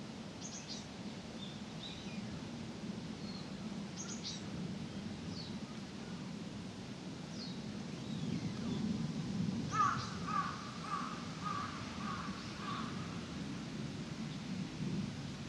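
Outdoor park ambience: small birds give short high chirps now and then, and about ten seconds in a crow caws about six times in quick succession. Under it all runs a steady low rumble.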